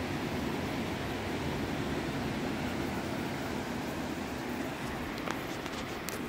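Steady low rushing of sea wind and gentle surf at the shore, with a couple of faint ticks near the end.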